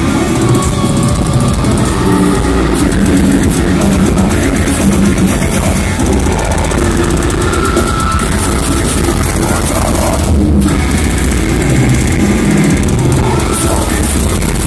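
Death metal band playing live: distorted guitars, bass and drums in a dense, loud wall of sound, recorded from within the crowd so it comes across overdriven. There is a brief break in the high cymbal wash about ten seconds in.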